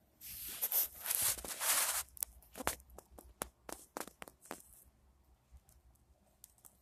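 Close rustling of a fabric blanket for about two seconds, followed by a run of sharp clicks and crackles that thin out.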